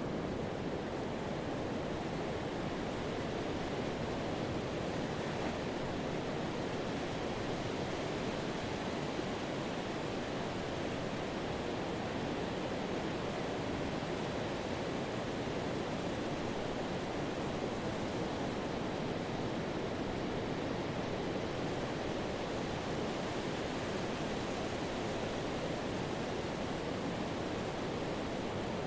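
Pacific surf: a steady, unbroken wash of waves breaking and foam running up the sand, with no single wave standing out.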